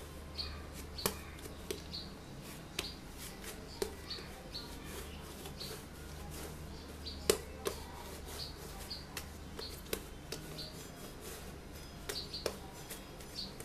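Rice flour dough being kneaded by hand on a stone countertop: soft pressing and rubbing with scattered light taps and knocks of the dough and hands on the counter, the sharpest about seven seconds in, over a low steady hum.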